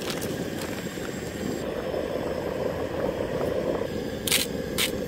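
Broccoli and cauliflower sizzling steadily in a hot Jetboil Genesis skillet of chicken drippings and pasta water, with a few sharp clicks near the end.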